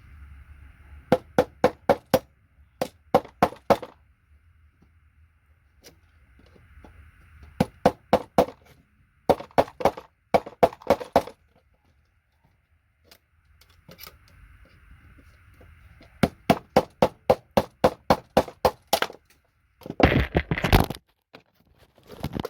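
Hammer tapping a paint scraper to knock connectors off a circuit board: quick runs of sharp metallic knocks, about five a second, with pauses between. A louder, longer clatter comes about two seconds before the end.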